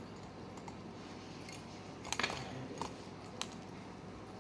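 A few light clicks and clinks as a pencil is pushed into the coils of a slinky: a small cluster about two seconds in, then two single clicks.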